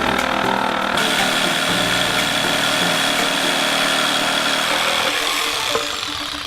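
A power tool running steadily with a high whine, easing off near the end.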